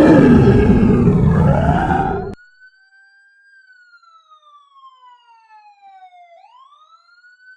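Loud growling and roaring of zombies cuts off abruptly about two seconds in. A faint siren then wails alone, its single tone slowly rising, falling and rising again.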